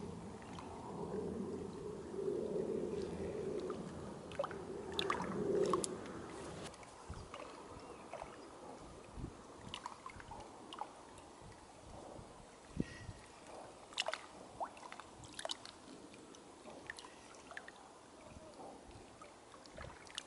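Small waves lapping and sloshing against the shore, with scattered short splashes and clicks. A louder low murmur runs through the first six seconds or so, then fades.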